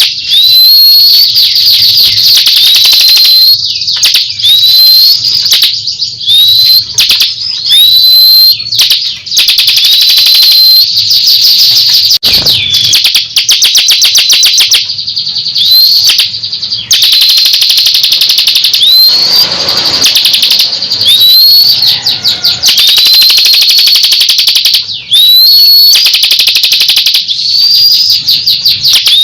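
Bar-winged prinia (ciblek kristal) singing loudly and almost without pause: fast rattling trills broken about once a second by short upward-swooping whistled notes.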